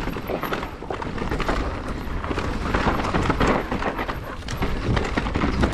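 Mountain bike riding down a rough trail: wind rumbling on the microphone, with a constant irregular rattle and knocking of tyres and frame over the ground.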